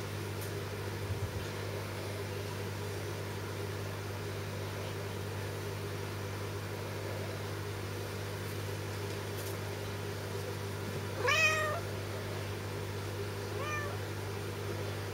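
Four-week-old Bengal kitten mewing: one loud rising mew about eleven seconds in and a shorter, fainter one about two seconds later, over a steady low hum.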